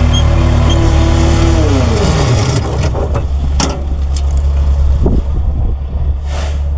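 Diesel engine of heavy jobsite equipment running, its pitch dropping about two seconds in as it slows. A few sharp knocks follow, and there is a short hiss near the end.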